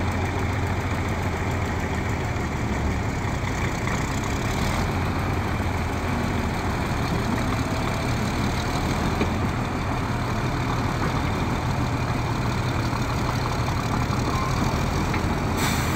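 Caterpillar crawler tractor's diesel engine running steadily at low speed while towing a heavy load.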